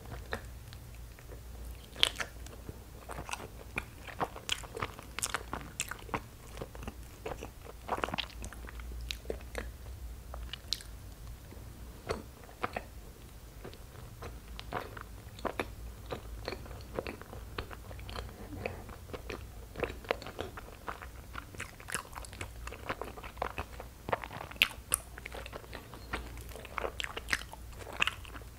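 A person chewing soft, sticky injeolmi rice cake with a cream cheese filling: irregular sharp mouth clicks and smacks, with a bite at the start.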